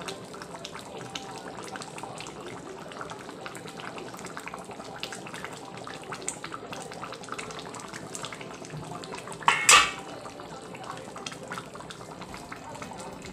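A pan of curry simmering, a steady faint bubbling crackle, with one loud short clatter of a utensil against the kadai about three-quarters of the way through.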